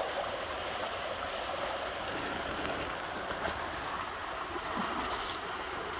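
Water of a spring-fed stream running steadily.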